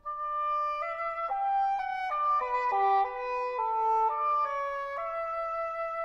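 English horn and trumpet soloists playing a slow, exposed melodic passage without accompaniment. Single held notes step from one to the next, the two lines briefly overlapping in the middle, and one long note is held near the end.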